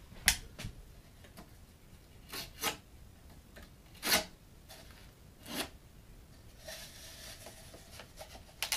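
Thin wooden shim strips being handled at a door frame: a few scattered sharp knocks of wood, then a short scraping stretch near the end as a knife works along a strip to cut it.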